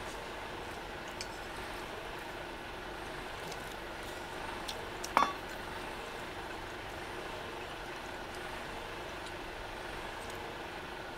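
A single sharp metallic clink of tableware about five seconds in, ringing briefly, over a steady background hiss.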